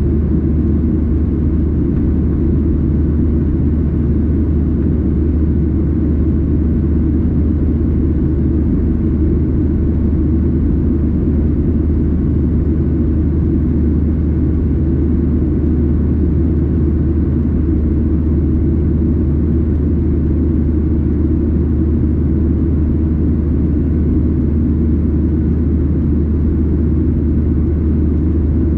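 Steady cabin noise inside a Boeing 737-800 airliner: an even, deep rumble of its CFM56 engines and airflow, with no change in pitch or loudness.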